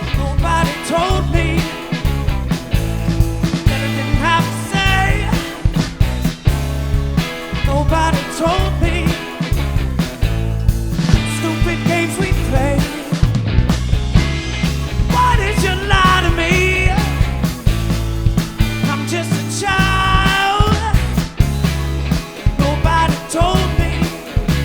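Live funk-soul rock band playing an instrumental passage: a driving bassline and drums under a bending melodic lead line.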